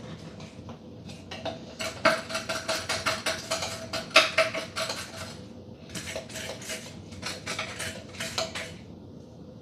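Rapid clinking and rattling of kitchen utensils and dishware as dried spices are measured out. It comes in two bursts of a few seconds each, with a light metallic ring under the clicks.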